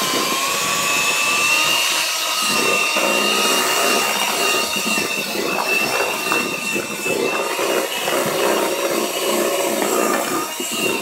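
White electric hand mixer running steadily, its beaters whipping cheesecake batter in a plastic bowl, with a steady high motor whine.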